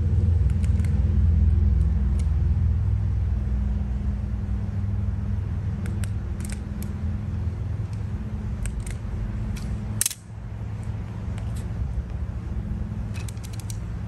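Wire strippers clicking and snipping at a power cord's rubber insulation, a scattering of sharp clicks with the loudest about ten seconds in. Under them a steady low engine rumble that slowly fades.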